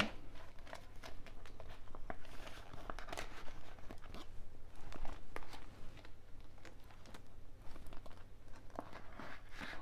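Paper banknotes rustling and clear plastic binder pockets crinkling as cash is counted and handled in a cash-envelope binder, in a quick, irregular run of small rustles and ticks.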